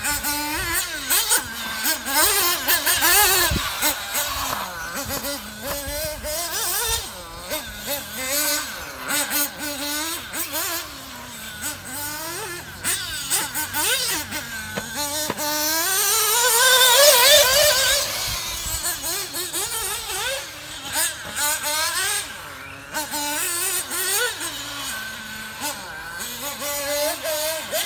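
1/8-scale radio-controlled off-road buggies lapping a track: the small glow engine of a nitro Kyosho MP9 TKI3 revving up and down together with electric buggies, the pitch climbing and dropping again and again through the corners and straights. It is loudest about 17 seconds in, as a car accelerates past with a rising whine.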